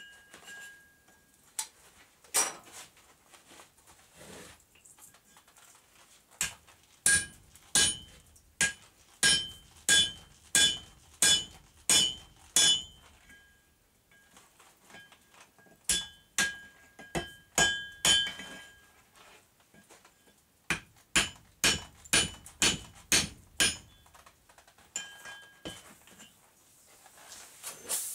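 Blacksmith's hammer striking a red-hot railroad spike on an anvil, each blow with a short metallic ring. A few scattered strikes come first, then three runs of quick blows, nearly two a second, separated by short pauses.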